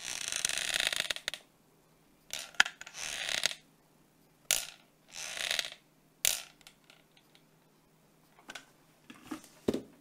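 A hot glue gun being squeezed against a fabric flower: about five short bursts of clicking, creaking trigger feed and fabric rustle, then a few light knocks near the end.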